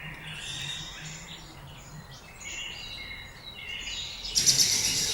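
Small birds chirping and twittering, with a louder, rapid trill near the end.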